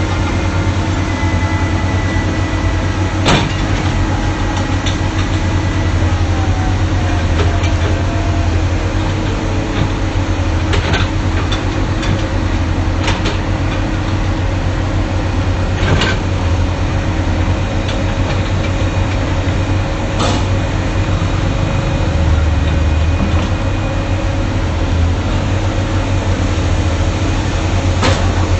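Excavator's diesel engine running steadily with a deep low rumble, punctuated by about six sharp knocks from the machine at work, one every few seconds.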